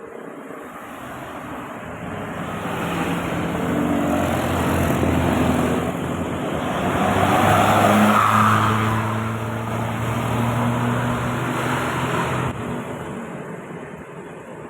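Tour bus passing along the road: its engine hum and tyre noise build steadily to a peak about eight seconds in, then fade away.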